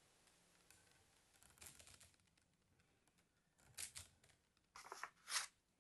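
Plastic toy slinky being handled by hand: a few soft rustling, clicking bursts of its coils, the loudest two near the end.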